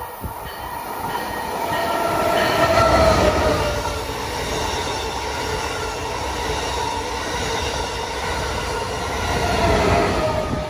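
Amtrak Acela high-speed trainset passing close by: a steady rumble of wheels on rail with whining tones above it. It grows loud as the leading power car goes by about three seconds in, holds through the coaches, and swells again as the rear power car passes near the end.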